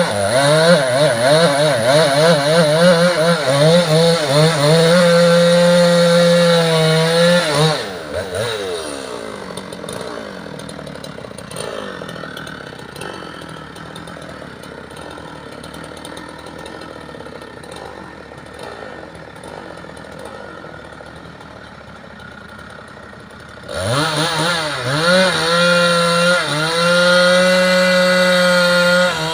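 Two-stroke chainsaw running at full throttle with its pitch wavering under load as it cuts logs. About eight seconds in it drops back to a quiet idle. Near the end it revs up sharply again to full speed.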